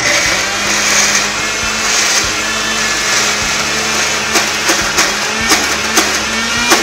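Electric mixer grinder with a stainless-steel jar switched on and running steadily with a loud whir, pureeing chickpeas, tahini and olive oil into hummus.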